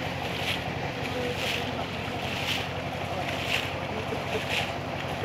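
Pond water splashing in a regular beat, about once a second, as water is churned by hand inside a fish-fry net enclosure, over a steady low motor hum.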